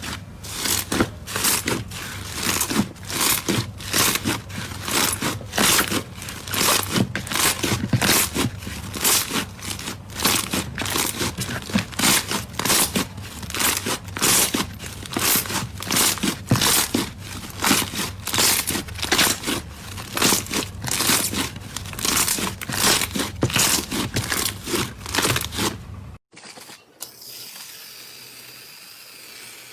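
Slime being squeezed and pressed by hand, crackling and popping with many small sharp pops a second. Near the end it cuts off abruptly to a much quieter steady background.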